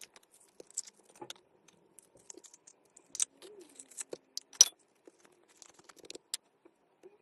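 Slime being handled, squeezed and poked, giving irregular sticky clicks and crackles, with the loudest snap about four and a half seconds in.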